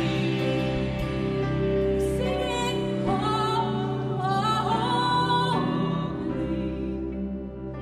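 Live worship song: a woman's voice sings two phrases of the line "singing holy" over a held band chord with violin and guitar.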